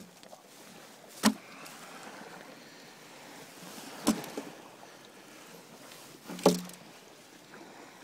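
Freshly caught, still-living sea bass being handled in a plastic bag: three sharp slaps about two and a half seconds apart, the last the fullest, over a steady hiss.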